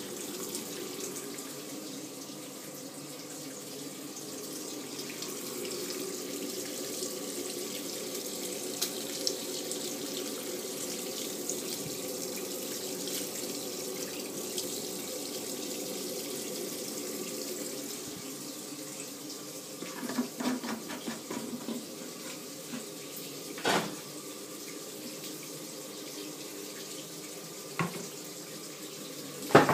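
Samsung 7.5 kg top-load washing machine with water rushing steadily in the drum during a wash cycle. About twenty seconds in there is a brief clatter, then a few single knocks, the loudest just before the end.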